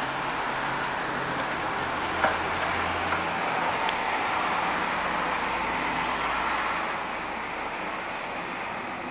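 Road traffic heard through an open window: a steady rush of passing vehicles that swells in the middle and eases off near the end. A couple of sharp light clicks come in the first half.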